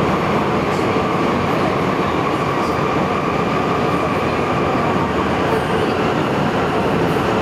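Sendai Subway Tōzai Line linear-motor train running through a tunnel, heard from inside the car. A steady running rumble with a faint steady whine.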